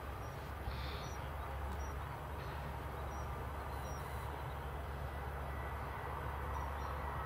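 Steady low rumble and hiss of outdoor airfield background noise, with a few faint short high chirps.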